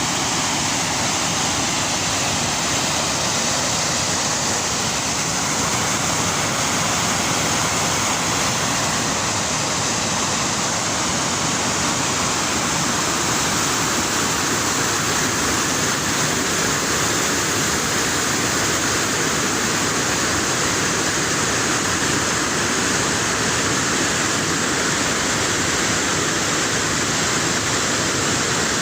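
A waterfall: falling water rushing steadily and evenly, with no change throughout.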